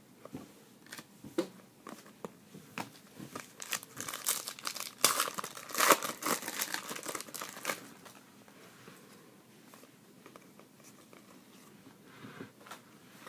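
Foil wrapper of a Panini Contenders hockey card pack being torn open and crinkled by hand. A run of sharp crackles peaks from about four to eight seconds in, then dies down to faint handling.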